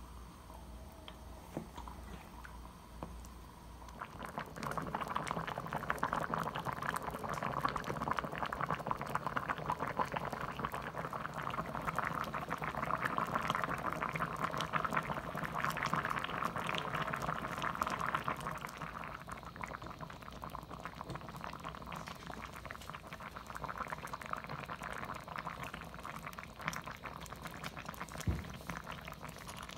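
Spicy tofu stew in chilli-paste broth boiling hard in a ceramic pot, a dense, crackly bubbling that starts about four seconds in and softens in the second half. One light knock near the end.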